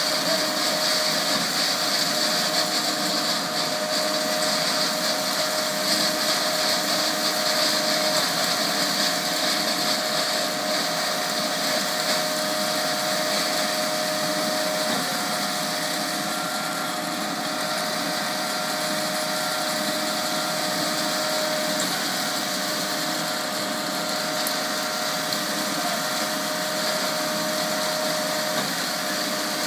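Concrete pump truck running while pumping, a steady mechanical drone with a faint steady whine over it.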